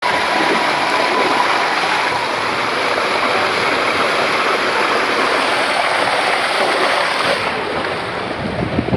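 Water rushing and splashing steadily down the start section of a steep kamikaze waterslide, foaming around a rider's legs. The sound gets duller near the end.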